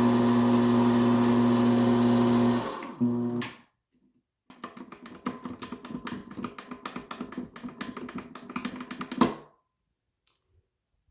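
Electric motor of a jar-test gang stirrer humming steadily, switched off about three seconds in. After a short silence comes several seconds of irregular light clicking and rattling, ending in a sharp click.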